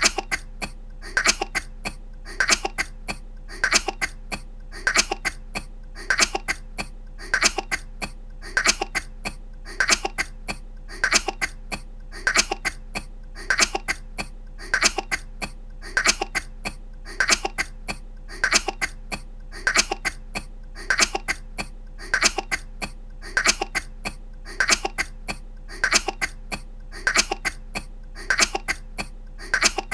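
A woman's short coughs, a quick cluster of a few at a time, repeating at an even pace of about one cluster every second and a quarter, looped identically.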